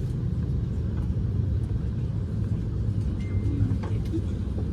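Steady low rumble of an Airbus A321neo cabin during pushback, heard from a rear seat, with a short faint high tone about three seconds in.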